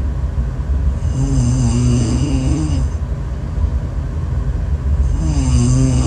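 A woman snoring in her sleep: one drawn-out snore with a wavering pitch about a second in, and a second one starting near the end, over a steady low rumble.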